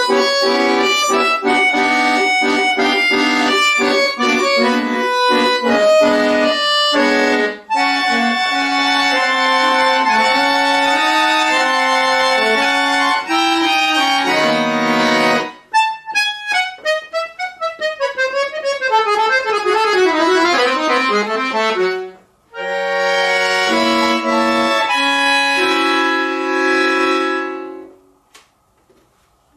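Chromatic button accordion played solo. It moves from quick notes and full chords into long held chords, then after a brief pause plays a flurry of rapid descending runs, ending on sustained chords that fade out near the end.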